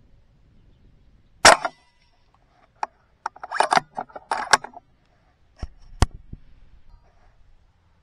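A .22 Brocock Sniper XR Magnum pre-charged pneumatic air rifle fires once about a second and a half in, a single sharp report. A cluster of short knocks and rustles of handling follows, then a few sharp clicks.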